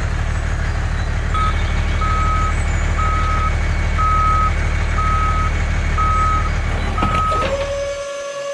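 Truck reversing alarm beeping steadily, seven times at a bit more than one beep a second, over a steady low truck engine drone. The engine fades out near the end, and a steady tone sets in as the beeps stop.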